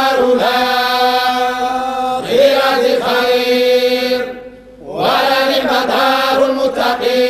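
Men's voices reciting the Quran in unison in the Moroccan group style (tahzzabt), drawing out long held notes on the verse. About four and a half seconds in the chant breaks off briefly for breath, then resumes.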